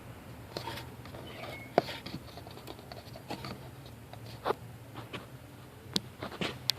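Scattered light clicks, taps and scrapes of handling, the sharpest about two seconds in and several close together near the end, over a low steady hum.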